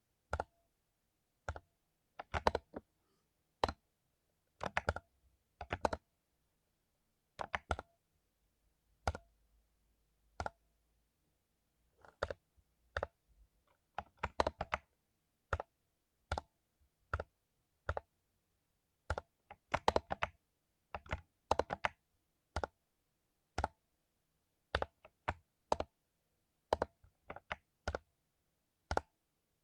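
Mechanical keyboard with lubed Cherry MX Silver linear switches being typed on: single keystrokes and short clusters of clacks, unevenly spaced, with brief silent gaps between.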